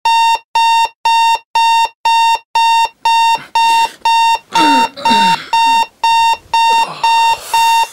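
Electronic alarm clock beeping: a short, loud, single-pitched beep repeating steadily about twice a second.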